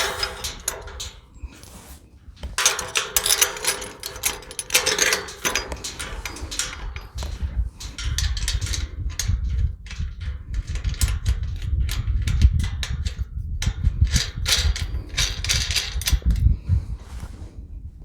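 Metal slide bolt latch parts clinking and knocking against a tubular metal gate as they are handled and positioned, some knocks ringing briefly. A low rumble comes in about halfway through.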